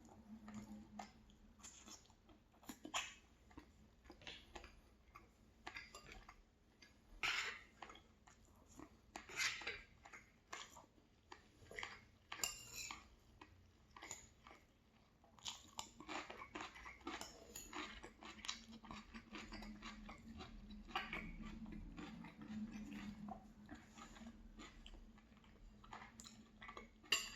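A person chewing food close to the microphone: quiet, irregular mouth clicks and soft crunches.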